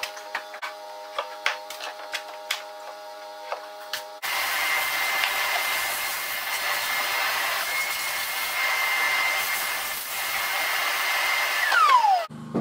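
A chisel lightly tapping and scraping at plaster, then a dust-extractor vacuum switches on suddenly with a steady high whine and rushing suction as it cleans out the debris. Near the end it winds down with a falling whine.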